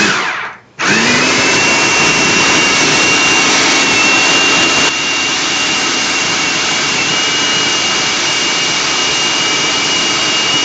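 Electric food processor blending black bean brownie batter: a short pulse, then under a second later the motor starts again, its whine rising to speed and running steadily, winding down at the end.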